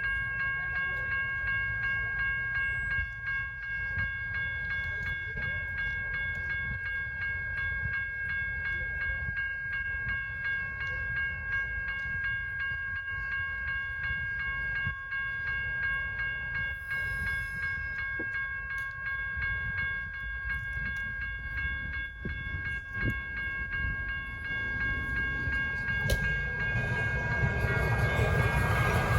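Railroad crossing warning bells ringing steadily over a low rumble. From about 26 seconds in, a louder rush builds as the Siemens-Duewag U2A light rail train approaches the crossing.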